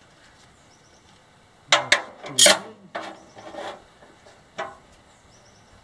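Handling noise as a log and a metal clamp are shifted and set: a quick cluster of scrapes and clanks of wood and metal about two seconds in, then a single knock near the end.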